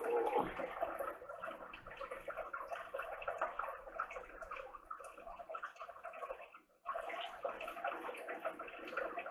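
Wet, sticky sounds of instant ramen noodles coated in egg being lifted with chopsticks and slurped and chewed. A short break comes about two-thirds of the way through.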